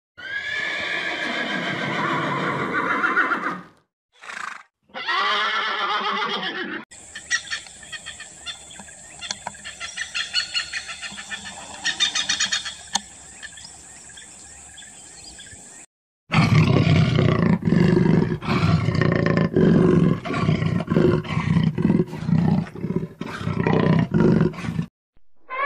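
Several different animal calls cut one after another: a long call falling in pitch, two shorter calls, a hissy stretch with scattered clicks, then a run of loud, rough, repeated calls.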